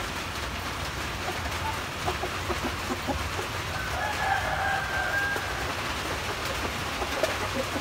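A rooster crows once, about four seconds in, for roughly a second and a half, over a steady background hiss.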